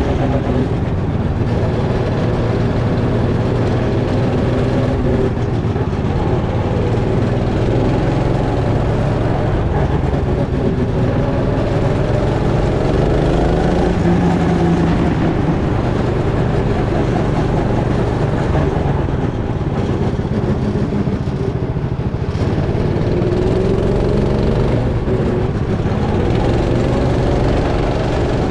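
Go-kart engine running hard at speed, its pitch rising and falling again and again as the kart accelerates and slows.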